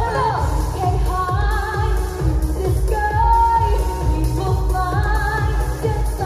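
Pop song with female singing over a steady drum beat.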